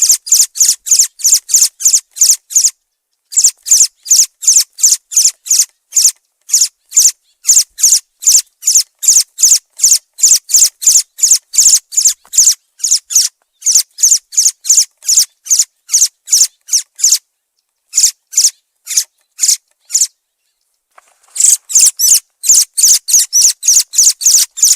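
Thrush calling: a rapid, steady series of short, sharp, high-pitched notes, about three or four a second, broken by brief pauses near the start, about two-thirds of the way through, and shortly before the end.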